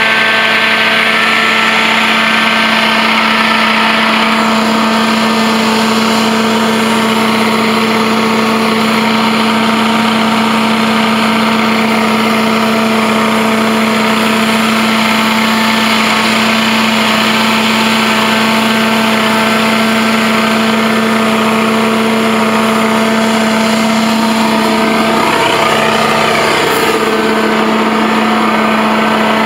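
Kohler V-twin engine of a Blue Baron Compact 45 truck-mount carpet extractor, running steadily at working speed with its blower and high-pressure pump. A high hiss rides over it at first, and its pitch wavers briefly near the end.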